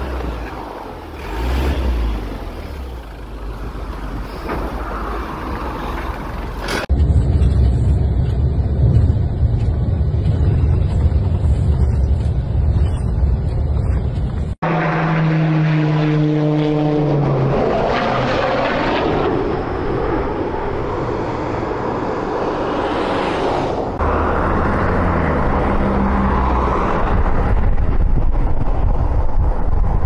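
A propeller aircraft passing overhead about halfway through, a steady drone that falls slightly in pitch as it goes by, among the rumble of wind and traffic on the highway. This is typical of a firefighting plane working over a forest fire.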